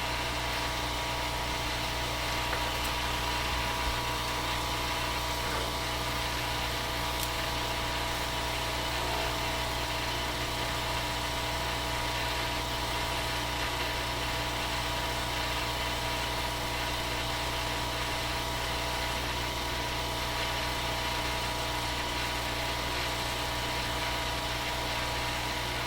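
A steady machine hum with a few fixed tones in it, unchanging in level throughout.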